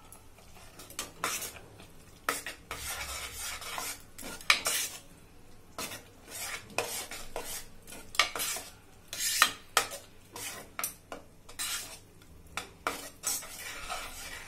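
A metal spoon stirring thick vegetable bhaji in a pressure-cooker pot, scraping and clinking against the pot's sides in quick, irregular strokes.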